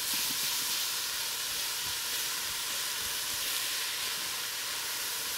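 Diced onion, carrot and celery sizzling steadily in a stainless steel pot while a silicone spatula stirs them: the vegetables are sweating in oil and rendered chicken fat.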